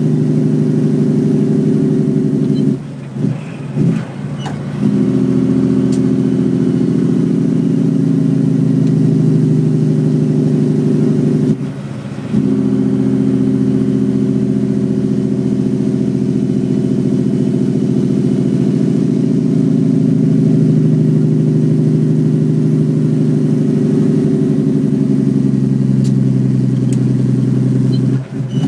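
Western Star truck's Cummins ISX engine on the Jake brake, a loud, steady, deep drone as the engine compression brake slows the loaded double rig, heard from inside the cab. The drone breaks off briefly about three to five seconds in, again around twelve seconds, and near the end.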